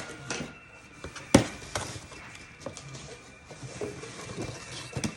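Rustles and scattered clicks of a boxed cast iron Dutch oven's packaging being opened and handled, with one sharp knock about a second and a half in and another near the end.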